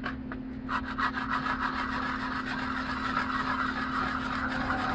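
A steel food can scraped against a concrete step, steady scraping from about a second in, to grind through the rim of the lid. A steady low hum runs underneath.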